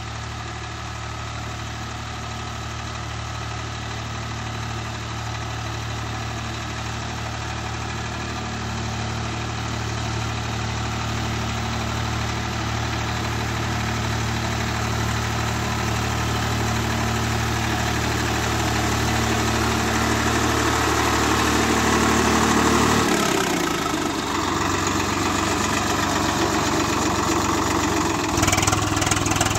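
Swaraj 744 FE tractor's three-cylinder diesel engine running steadily under load while pulling a planter, getting steadily louder as it draws near. About three-quarters of the way through its sound changes abruptly as the tractor comes right up to the microphone.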